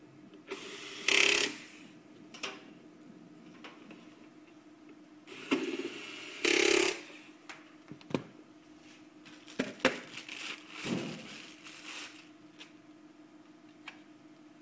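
Hands-on assembly noise from work on a POS terminal: two brief whirring, rasping bursts about a second long, then a quick run of clicks and knocks from parts and tools.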